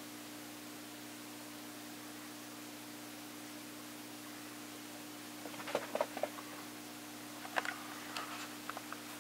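Steady low hum in a quiet room. From about five and a half seconds in, a scattering of light taps and scuffs comes in two short clusters.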